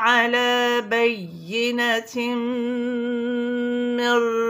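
A voice chanting Quranic recitation in tajweed style: a few wavering, ornamented notes with a short dip in pitch about a second in, then one long vowel held on a steady note for over two seconds.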